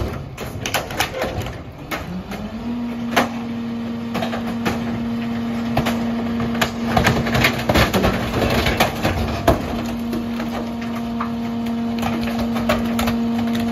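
Mack LR rear-loader garbage truck's engine rising in pitch about two seconds in and holding a steady raised idle to drive the Heil 5000 packer, over repeated knocks, cracks and crunches of plastic and wood junk being thrown into the hopper and crushed.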